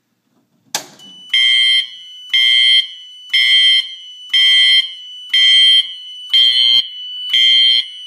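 A sharp clack as a fire alarm pull station is pulled. Then a Siemens CU-MMT fire alarm horn sounds, loud, set to single-stroke tone in march code: one pulse about half a second long each second, seven pulses in all.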